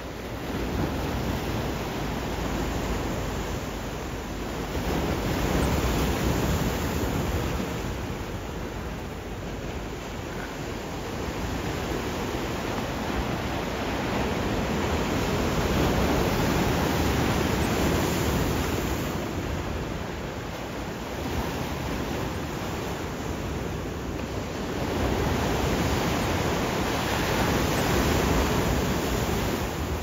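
Pacific Ocean surf: waves breaking and washing in, the rush of water swelling and easing every several seconds.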